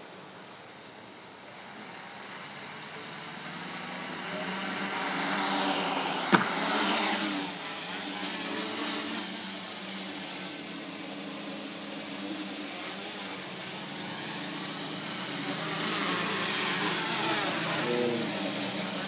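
Small quadcopter's electric motors and propellers buzzing steadily with a high whine as it lifts off and hovers low, getting louder as it comes closer. One sharp knock about six seconds in.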